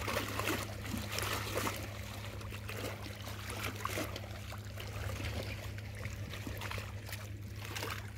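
Choppy river water lapping and splashing irregularly at the bank, over a steady low hum.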